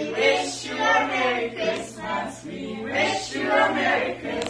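A group of children and adults singing together as a small choir.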